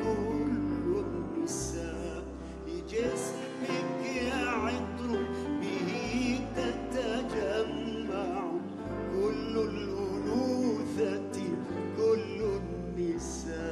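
A male Arabic singer sings a slow ballad in ornamented, wavering vocal runs, accompanied by grand piano, with held low bass notes underneath.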